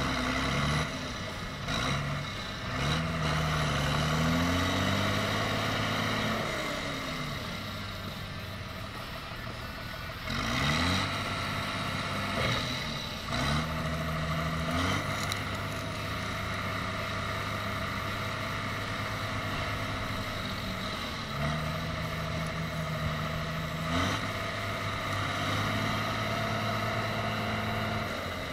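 John Deere tractor's diesel engine running under heavy load, revving up and falling back again and again as the tractor, stuck in deep mud, strains to drive itself out. A few short knocks sound through it.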